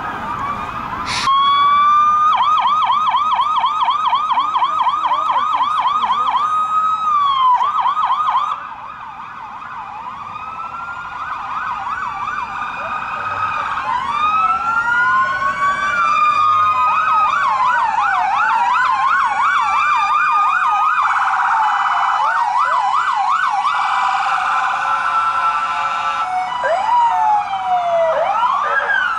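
Several police car sirens sounding at once, overlapping. A fast yelp is loudest for the first several seconds and cuts off about eight seconds in. Then more sirens build up, slow rising-and-falling wails and fast yelps mixed together.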